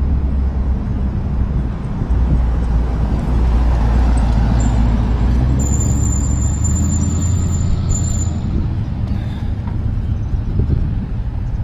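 Road traffic at a street intersection, a steady low rumble of passing vehicles, with a thin high whine lasting about three seconds in the middle.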